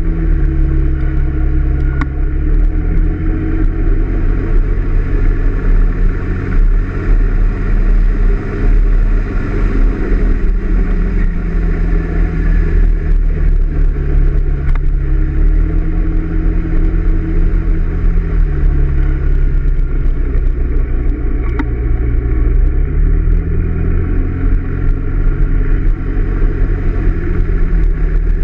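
Honda PCX125 scooter's single-cylinder four-stroke engine running under way, its pitch rising and falling several times as the throttle opens and closes through the bends. Under it is a heavy low rumble of wind on the microphone.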